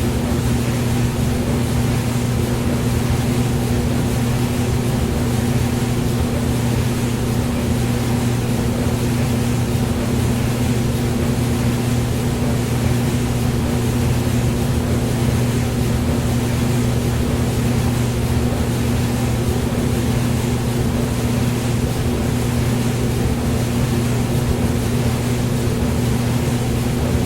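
Hair dryer running steadily: an even rush of blown air over a constant motor hum.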